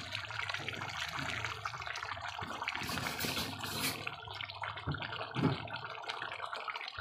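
Goat caldereta stew at a hard boil over a strong flame: steady bubbling and spluttering in the pot, with a brief hiss about three seconds in.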